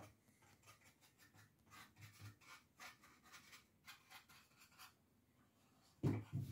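Faint scratchy strokes of a brush scrubbing dark brown wax into rough, weathered wooden boards, in quick irregular strokes. A few louder knocks come near the end.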